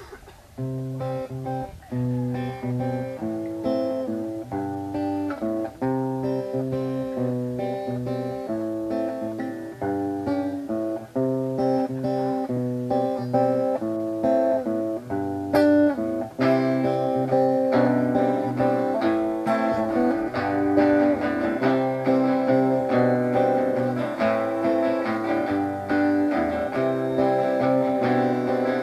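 Two acoustic guitars playing a song's instrumental opening, picked chord patterns that turn into fuller, busier strumming from about halfway through.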